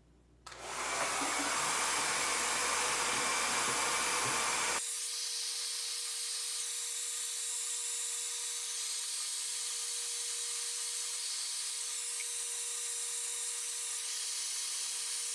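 A Good Hair Day 1600-watt hair dryer is switched on about half a second in and blows steadily at its highest heat and fan speed, drying wet hair. About five seconds in the sound abruptly loses its low end, leaving a steady airy hiss with a faint whine.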